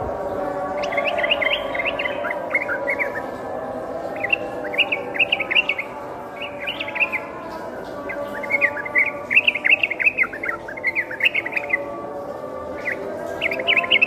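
Yellow-vented bulbul singing: phrases of quick notes rising and falling, about six of them with short pauses between. Under them runs a steady low hum.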